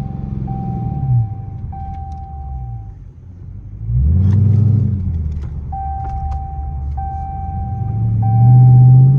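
Straight-piped Dodge Charger R/T's 5.7-litre HEMI V8, heard from inside the cabin. Its note falls as the car coasts down nearly to a stop. About four seconds in it gives a sudden loud burst of throttle as the car pulls away, and near the end it pulls louder and rises in pitch under acceleration.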